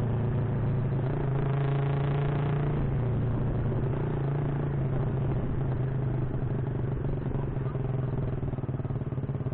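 Honda Supra underbone motorcycle's single-cylinder four-stroke engine running at a fairly even speed while being ridden, with road and wind noise.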